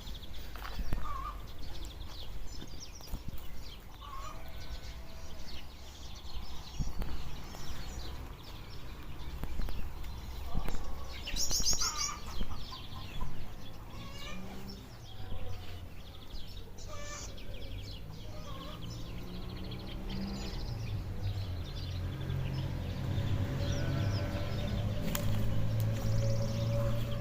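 Outdoor countryside ambience with scattered bird chirps and calls, brightest about halfway through. In the last third a low, steady hum builds up gradually and becomes the loudest sound.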